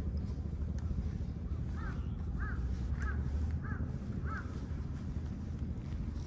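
A crow cawing in a quick series, about five caws a little over half a second apart, starting about two seconds in, over a steady low rumble.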